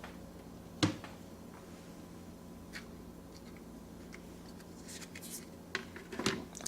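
Hands handling small phone parts: a sharp tap about a second in and a few faint clicks, then rustling and several taps near the end, over a faint steady hum.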